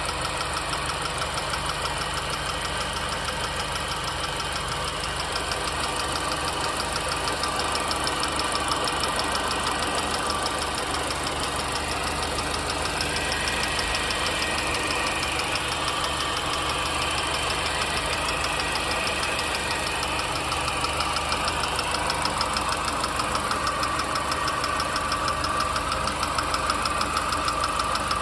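R53 MINI Cooper S supercharged four-cylinder engine running steadily with a fast, even ticking. The owner is asking where the ticking comes from and has not traced its cause.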